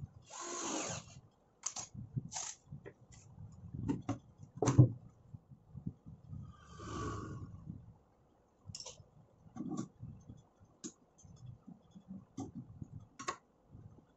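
Handling noises while fitting metal drawer slides to a plywood drawer: scattered clicks and knocks, the sharpest about five seconds in, and two short scrapes, one near the start and one about halfway through.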